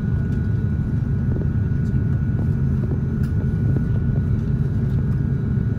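Cabin noise inside an Airbus A350-900 taxiing: a steady low rumble from its Rolls-Royce Trent XWB engines at taxi power and the rolling airframe, with a thin steady whine above it.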